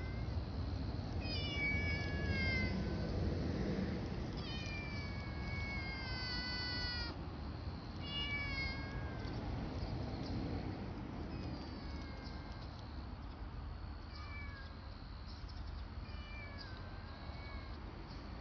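A black-and-white kitten meowing repeatedly, each meow falling in pitch: four long meows in the first half, then several shorter, fainter ones. A low steady rumble runs underneath.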